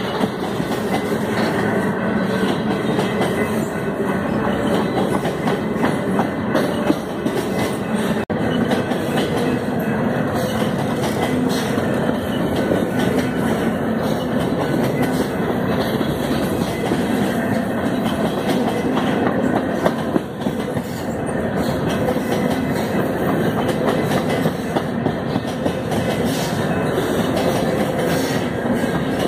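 Freight train of covered hopper cars rolling past close by: a steady rumble of steel wheels on rail, with the rapid clickety-clack of wheels over the rail joints.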